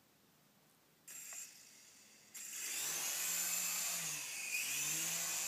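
Small remote-controlled toy helicopter's electric motor and rotor spinning up: a short whir about a second in, then from about two and a half seconds in a steady whirring with a high whine as it takes off, the rotor speed dipping briefly and picking up again.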